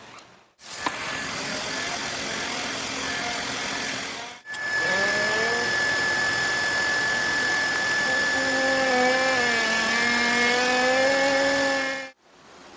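Leister Varimat S hot-air seam welder running on PVC tarp: a steady blower hiss with a high, even whine and a lower hum that wavers in pitch. The sound cuts off abruptly about half a second in and again near four and a half seconds, and the second stretch is louder.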